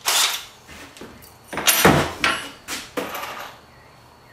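Clicks and knocks of a cordless drill and its bit being handled and set down on a wooden workbench, a few separate knocks with the loudest about two seconds in; the drill motor does not run.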